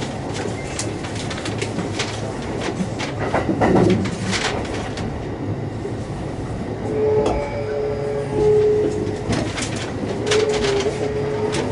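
Kintetsu 9820-series electric train running at speed, heard inside the car: wheels rumbling on the rail with many short clicks and a brief louder swell about four seconds in. About seven seconds in a steady whine sets in from the traction motors, which are driven by a Mitsubishi IGBT inverter.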